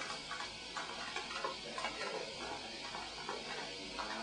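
A papillon's claws clicking on a hard floor as it steps and turns, a few light, irregular ticks a second.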